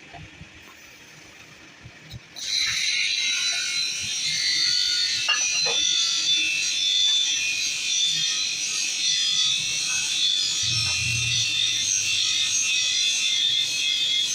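A few light clicks, then about two seconds in an electric grinder starts up and runs steadily on steel with a high, hissing whine.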